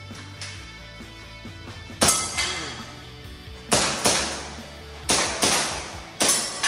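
Gas-powered airsoft pistol firing six sharp shots at uneven spacing, the last four in two quick pairs, over steady background music.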